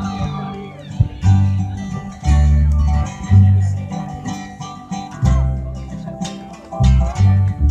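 Live folk music led by acoustic guitar, with strong low bass notes about once a second.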